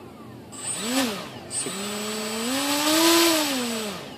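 EMax MT2204 brushless motors with props spinning up under throttle: a short whine that rises and drops about a second in, then a longer whine that climbs in pitch and falls away near the end.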